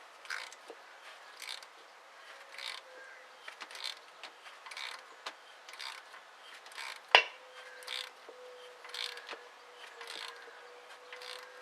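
A pipe-thread tap being turned in short strokes, cutting threads into the hole for a pyrometer probe. It makes a creaking, clicking burst about once a second, with one sharp loud click about seven seconds in.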